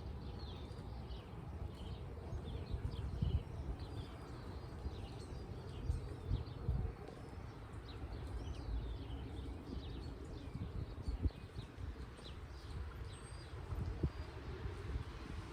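Small birds chirping over a low, steady rumble of wind on the microphone, with a few dull thuds from the horse's hooves.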